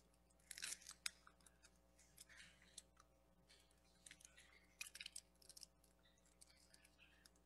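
Faint rustling and crackling with small clicks as communion bread and a cup are handled, sharpest about half a second to a second in and again around four to five seconds in.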